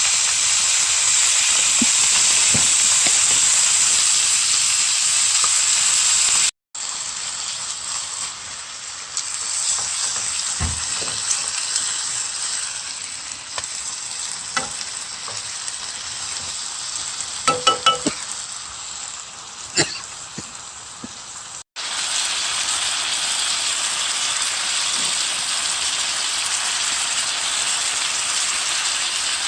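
Spicy pork stir-fry (duruchigi) sizzling and frying in a hot pan, a loud steady hiss. The sizzle drops off abruptly twice. In the quieter middle stretch a few quick metallic clinks of a utensil on the pan are heard, about two-thirds of the way through.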